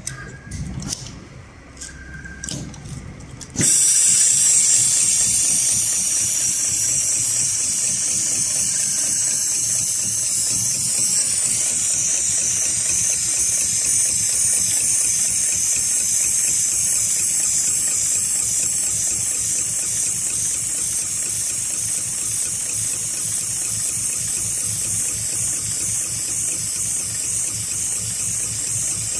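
Heavy-duty automatic climbing-rope sewing machine: a few clicks and knocks as the rope is laid in and clamped. About three and a half seconds in, the machine starts and runs steadily, stitching a zigzag bartack through the rope. Its loudest part is a steady high hiss, with the fast chatter of the sewing mechanism underneath.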